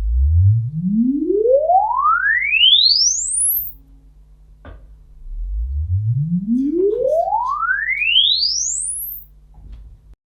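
Dirac Live measurement sweeps played through the loudspeakers: two rising sine tones, each gliding smoothly from deep bass up to a very high pitch in just under four seconds, the second starting about five seconds after the first. Each sweep is one measuring pass at the microphone's listening position.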